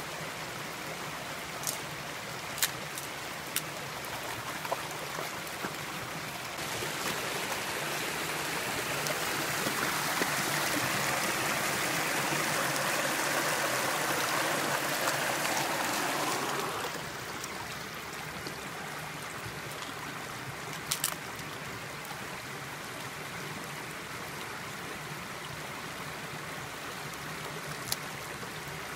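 Shallow rocky creek running and gurgling. It grows louder for about ten seconds in the middle, where water rushes over rocks close by. A few brief sharp clicks are heard over it.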